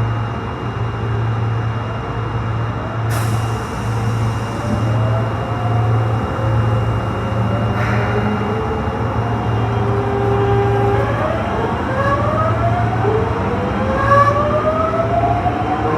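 Osaka Metro Tanimachi Line 22-series car's traction motors and inverter whining high-pitched, several tones climbing in pitch in steps as the train accelerates, mostly from about ten seconds in, over a steady low hum. A short burst of air hiss comes about three seconds in.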